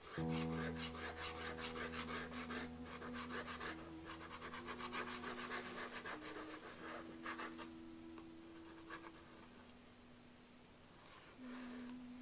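Pastel stick rubbing and scratching on paper in quick, short, repeated strokes that thin out after about seven seconds. A steady low hum of several held tones runs underneath, shifting pitch a few times before fading out.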